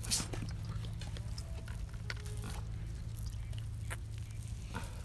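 Wet squelching and scraping of a chilli-marinated scad being pushed into a bamboo tube by hand, a scatter of short sounds, the loudest just after the start. A steady low hum runs underneath.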